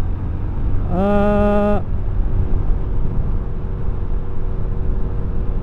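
Steady wind buffeting and engine rumble from a Honda Supra X 125 FI, a single-cylinder SOHC four-stroke underbone motorcycle, cruising at an even speed. A short held tone sounds once about a second in.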